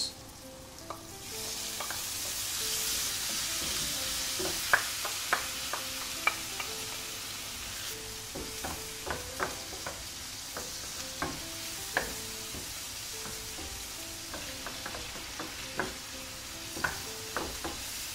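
Tomato sauce sizzling in a hot pan of frying chorizo, garlic and paella spices, the hiss swelling about a second in, while a wooden spoon stirs it and knocks against the pan many times.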